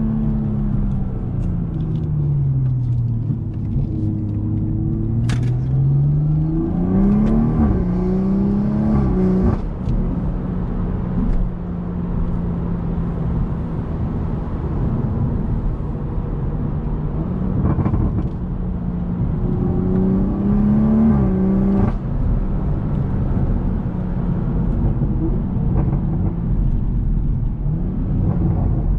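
BMW M140i's 3.0-litre turbocharged inline-six running under way. The engine note falls as it slows, climbs through the revs, holds a steady pitch, then rises and drops again. A few short sharp cracks sound around the pitch changes.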